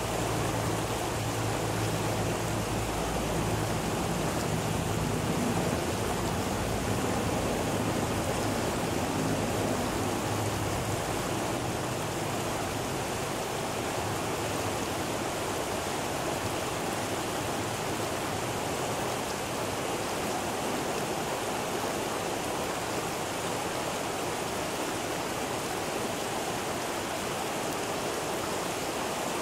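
Steady rush of a shallow river running over rocks, with a low rumble underneath that fades out about ten seconds in.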